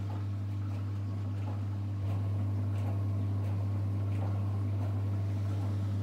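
Scandomestic mini dishwasher and Miele Novotronic W 980 washing machine running together: a steady low electric pump hum that steps up louder about two seconds in, with faint scattered ticks above it.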